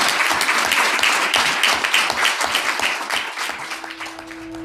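Audience applause: many hands clapping quickly and densely, thinning and fading after about three seconds. Near the end a steady held musical tone comes in underneath.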